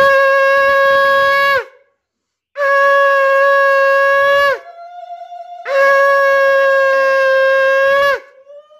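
Conch shell (shankha) blown in three long, loud, steady blasts, each falling off in pitch as the breath runs out.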